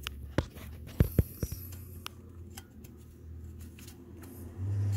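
Sharp clicks and light taps of a gloved hand handling metal engine parts and hoses in a car's engine bay, several in the first second and a half, over a low steady hum that grows louder near the end.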